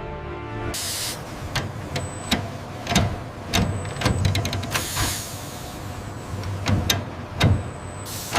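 Industrial machinery sounds: a short hiss of released air about a second in, then irregular sharp mechanical knocks and clicks over a low steady hum.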